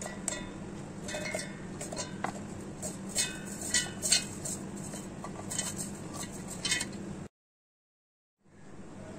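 Roasted almonds, cashews and other nuts tipped into a stainless steel mixer-grinder jar, rattling and clinking against the metal with a short ringing tone after each hit, over a steady low hum. The sound cuts out completely for about a second near the end.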